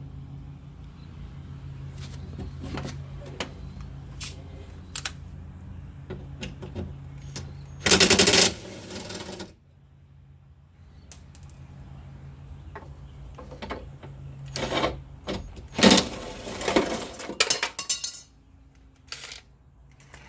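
Ratchet wrench clicking in two quick runs, about eight and sixteen seconds in, as the bolts holding the window glass to the regulator inside a car door are undone. Scattered clicks and clinks of tools and metal come between the runs.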